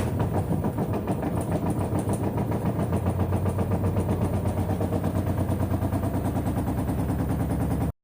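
LG washing machine spinning in test mode with an unbalanced drum, the cabinet knocking in a fast, even rhythm of about eight to ten beats a second over a steady low hum. It cuts off suddenly near the end.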